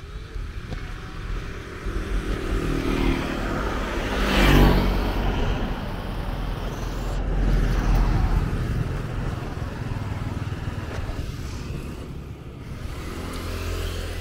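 Street traffic with a steady low rumble. One vehicle goes by close about four and a half seconds in, its engine note building and then dropping away as it passes, and more traffic swells past a few seconds later.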